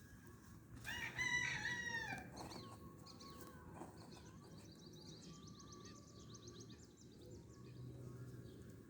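A rooster crows once, about a second in, lasting about a second and a half and falling in pitch at its end. Later a small bird gives a quick run of high chirps.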